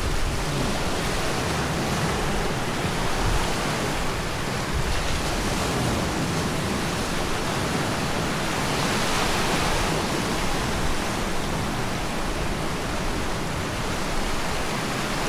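Sea waves breaking and washing over a rocky shore: a steady rush that swells slightly about nine seconds in, with an uneven low wind rumble on the microphone underneath.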